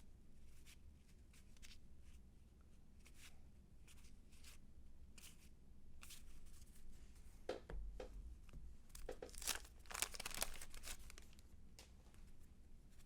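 Baseball cards being handled with faint soft clicks, then a louder burst of tearing and crinkling about eight to eleven seconds in, as of a card pack's wax-paper wrapper being torn open.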